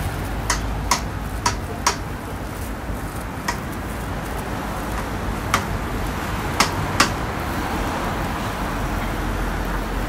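A metal spatula or scraper clacking against a steel flat-top griddle while chicken is chopped and turned: eight sharp, irregular metallic clacks over a steady background hiss.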